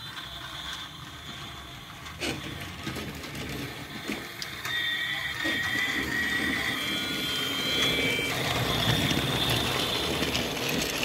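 Battery-powered toy train running along its plastic track: a small electric motor whine with the rattle of wheels and wagons, and a knock about two seconds in.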